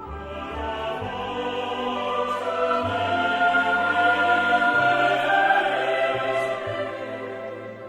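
Choral music: a choir singing long held notes over low bass notes that move in steps, swelling louder toward the middle and easing off near the end.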